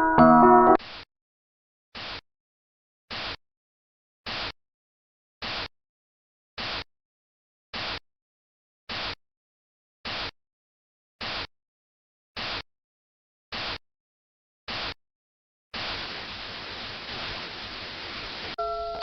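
Electronic static bursts from an alarm sound sequence: a dozen short bursts of hiss, evenly spaced a little over a second apart with silence between them, then about three seconds of unbroken static. A keyboard jingle cuts off in the first second and music starts again just before the end.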